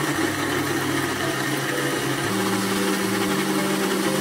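Food processor motor running steadily at full speed, its blade grinding black soybeans, peanuts and sesame seeds with water into a smooth bean milk.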